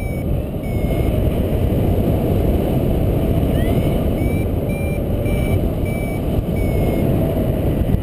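Paragliding variometer beeping in a steady series of short tones that sag slightly in pitch, the beeps stopping near the end, over heavy wind rumble on the microphone. The beeping is the vario's climb signal.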